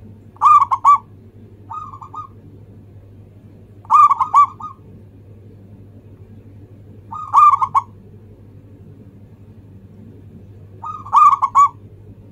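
Caged zebra dove (local perkutut) cooing: four phrases, each a quick run of three or four notes, about every three seconds, with a quieter phrase in between near the start. A steady low hum runs underneath.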